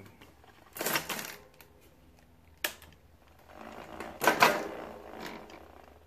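Mountain bike rear wheel spinning, its freehub ratcheting in a rapid clicking buzz. There is a short run about a second in, a single sharp click a little later, and a longer, louder run from about three and a half seconds that dies away near the end.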